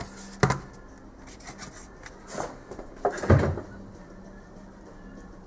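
Handling noise on a desk: a sharp knock about half a second in, light rustling, then a heavier thump and rubbing about three seconds in, as a styrofoam packaging tray and small parts are moved.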